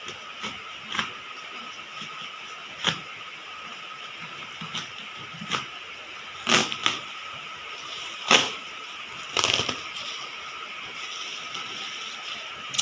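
Irregular clicks, knocks and short scrapes of a cardboard package being opened and handled, over a steady background hiss with a faint hum.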